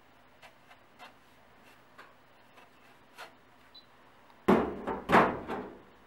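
Handling noise from a dryer lint screen and its lint: a few faint taps and ticks, then about four and a half seconds in two loud scraping rustles as the screen is handled.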